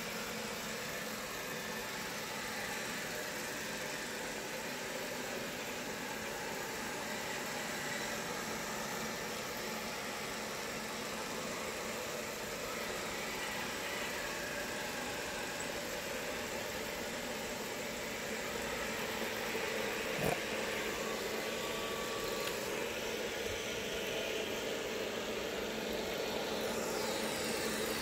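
Robot vacuum cleaner running: a steady whir from its fan and brushes that grows a little louder in the last third, with a single sharp click about two-thirds of the way through.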